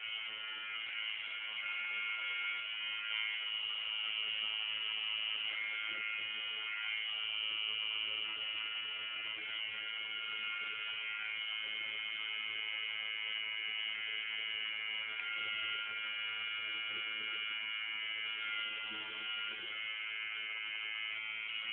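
Tattoo machine buzzing steadily at an unchanging pitch.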